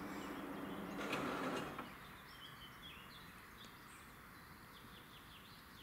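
Level-crossing barrier drives humming as the red-and-white booms swing up, the hum stopping just under two seconds in when the booms reach vertical. Birds then chirp faintly.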